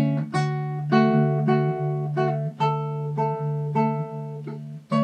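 Classical guitar tuned 'traspuesta por tercera alta' playing a plucked melody over a ringing open bass string, a note about every half second; the notes die away briefly near the end before a fresh pluck.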